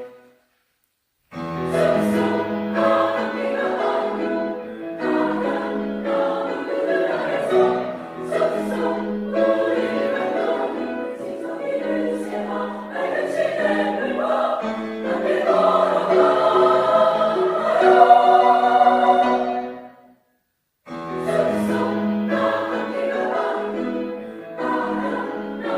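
Women's choir singing in several phrases. The singing breaks off into brief silence twice, just after the start and again about twenty seconds in.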